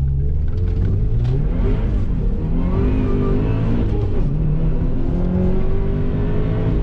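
Car engine revving hard under acceleration, its pitch climbing and dropping several times.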